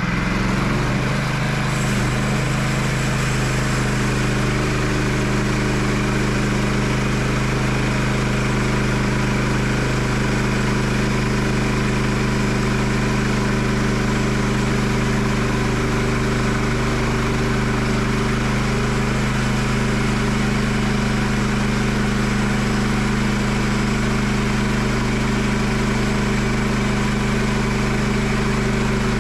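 Skid steer's engine running steadily at a constant speed.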